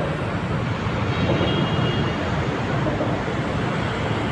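Vehicle engine running steadily, a low rumble with no break.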